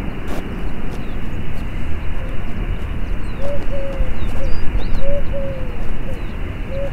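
A dove cooing: a run of short, falling notes that begins about three seconds in, over a steady low outdoor rumble, with a few faint chirps of small birds.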